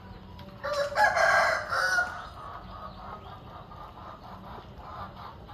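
A rooster crowing once, starting just under a second in and lasting about a second and a half.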